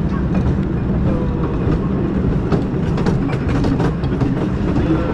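Tonnerre 2 Zeus wooden roller coaster train rolling slowly on its wooden track: a steady low wheel rumble with irregular clicks and clacks.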